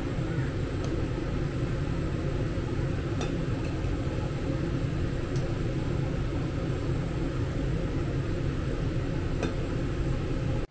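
Pot of dumplings at a rolling boil, the water bubbling steadily, with a few light clinks of a wire skimmer against the stainless steel pot.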